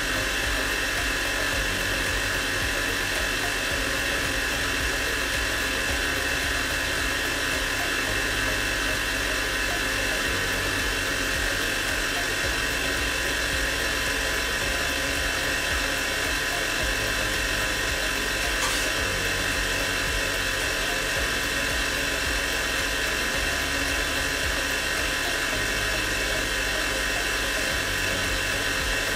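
Small electric kitchen mixer motor running steadily at one speed with a constant whine.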